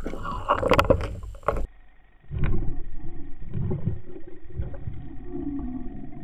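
Muffled underwater rumbling and knocks of churning water against an underwater camera as a pike strikes and shakes a dead bait fish. The sound breaks off sharply a little under two seconds in, then the uneven low rumbling resumes.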